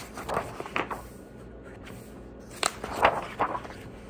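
Pages of a picture book being turned by hand: a few short papery rustles and flips, the loudest cluster about three seconds in.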